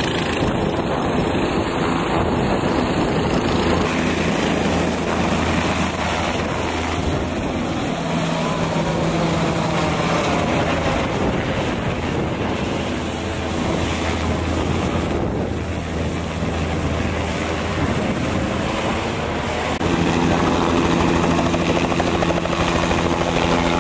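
Turbine-powered Bell helicopters, a Bell 206L LongRanger and a Bell 407, taking off and climbing away overhead: steady rotor and turboshaft engine noise. About twenty seconds in it grows louder as another helicopter lifts off close by.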